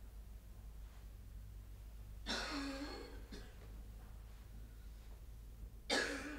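A man coughing twice: a harsh cough about two seconds in and a second, shorter one near the end.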